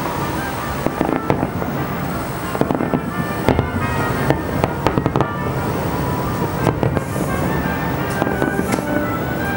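Aerial fireworks display: shells bursting in quick succession, a dense run of sharp bangs and crackles that thickens twice, about a third of the way in and again near the end.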